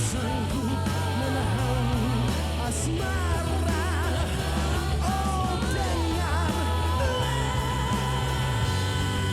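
Live rock band playing, with a bending lead melody over steady bass and drums.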